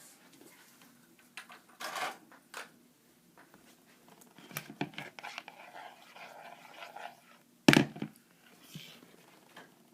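Scattered taps, clicks and light clatter of objects being handled on a tabletop, with one loud knock a little under eight seconds in.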